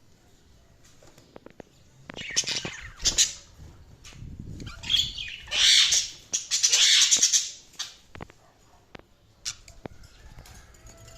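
Pet budgies chattering and squawking in loud, scratchy bursts between about two and seven seconds in, then a few faint chirps.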